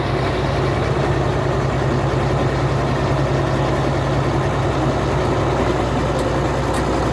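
Diesel engine of a Komatsu D80A bulldozer running steadily at a low, even speed with no revving.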